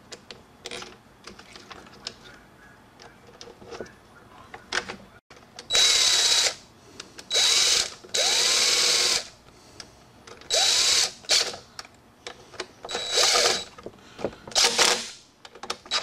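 A DeWalt cordless impact driver runs in about six short bursts, with quick spin-ups and spin-downs, driving the mounting screws of a small two-stroke engine's carburetor. Before the bursts there are faint clicks of parts being handled.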